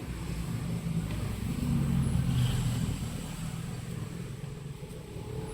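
Low engine rumble of a road vehicle passing by, swelling about two seconds in and then fading.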